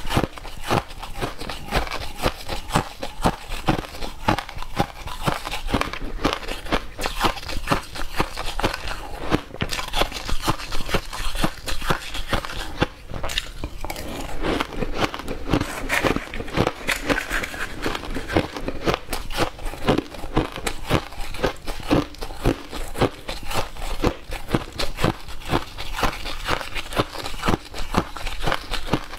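Close-miked crunching and chewing of shaved ice and frozen ice chunks, a dense, continuous run of crisp cracks from biting down on ice.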